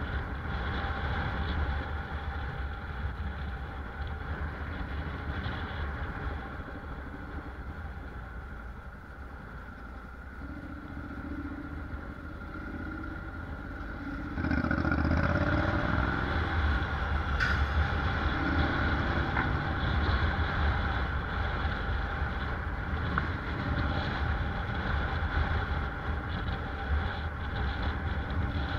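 Honda NC750X DCT motorcycle's parallel-twin engine running while riding, with road and tyre rumble. The engine eases off and quietens through the middle, then gets louder about halfway through as the bike speeds up again.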